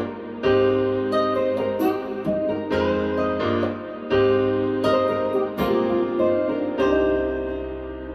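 Piano music from a test track played through a pair of KEF LSX wireless speakers. Chords are struck about once a second, then one last chord rings on and fades near the end.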